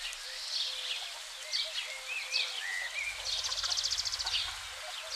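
Hens clucking quietly in a steady string of low notes, with wild songbirds chirping over them and a fast, high buzzy trill about three seconds in.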